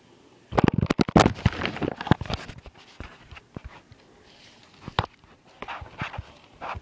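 Phone handling noise: fingers rubbing and knocking against the phone's microphone, a sudden dense run of loud crackles and knocks about half a second in, then scattered knocks.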